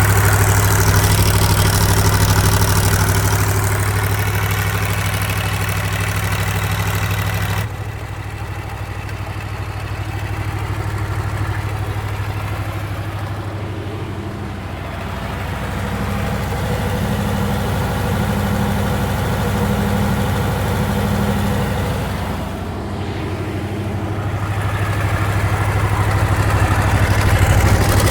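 Perkins V8 diesel generator set running steadily at constant speed with a deep even hum. About a quarter of the way in the sound suddenly turns duller and quieter, then grows fuller again near the end.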